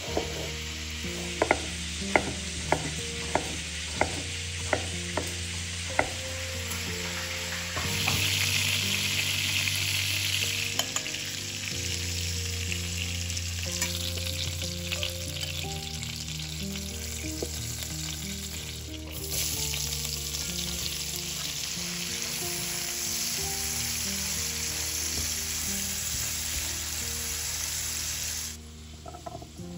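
A kitchen knife cuts potato on a wooden cutting board, about ten sharp chops in the first six seconds. Then chicken thighs sizzle in hot oil in a frying pan, growing louder about eight seconds in. Later, sliced onions sizzle in the pan as they are stirred with a spatula.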